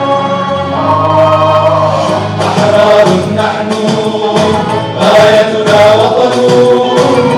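A group of male singers performing a nasheed, an Arabic anthem-style chant, their voices amplified through handheld microphones.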